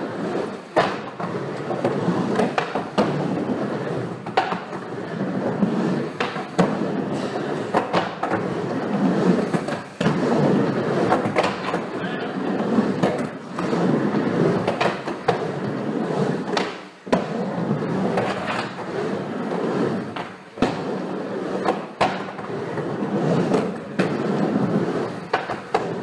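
Skateboards rolling over the wooden surfaces of an indoor bowl, a steady rolling rumble broken every second or two by sharp knocks of boards and trucks striking the ramp.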